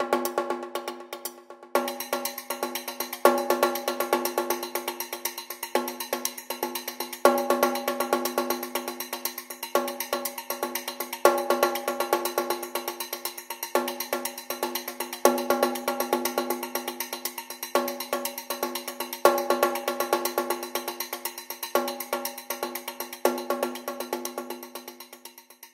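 Background music: a fast, ticking percussive pattern over sustained pitched notes, with a new accented chord about every two seconds.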